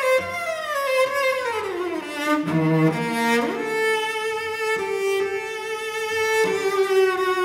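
Cello and violin bowing in a contemporary chamber piece. The pitch slides down over the first two seconds, then slides quickly up about three seconds in and settles into a long held note.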